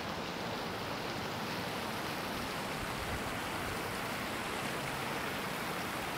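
Steady rush and patter of water from a children's splash-pool spray fountain jetting into the shallow pool.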